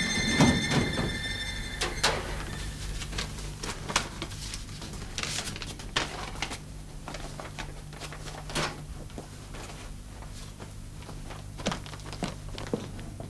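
Scattered knocks and clicks from a metal filing cabinet drawer and files being handled, over a steady low hum. Background music ends about two seconds in.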